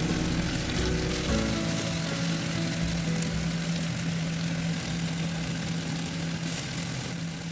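Chicken and string beans adobo sizzling steadily in a pan, under background music.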